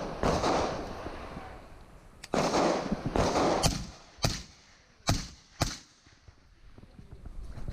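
Gunshots on a practical shooting stage: about five sharp shots between about two and six seconds in, with stretches of rushing noise on the microphone between them.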